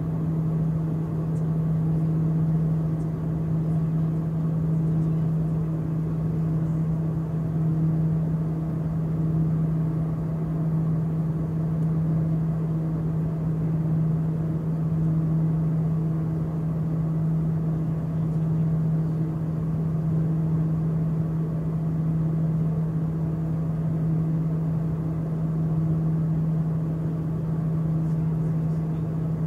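Cabin drone of a small twin-turboprop airliner in climbing flight: a steady low propeller and engine hum, with a higher overtone that pulses slowly in and out.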